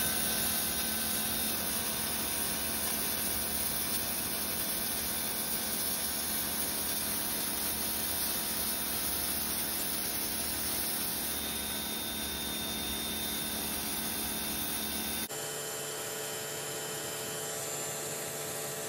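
Ryobi 1600 PSI electric pressure washer running steadily, its motor and pump humming under the hiss of a narrow zero-degree jet blasting concrete. The tone shifts suddenly about fifteen seconds in, with less low rumble.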